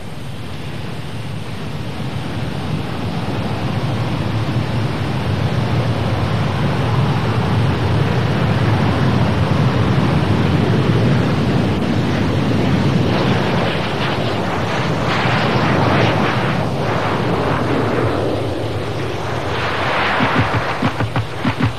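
BAe Hawk T1 jets' Adour turbofans at take-off power as a formation rolls down the runway: loud jet noise that builds over the first several seconds and swells in waves as the jets pass. Music comes in near the end.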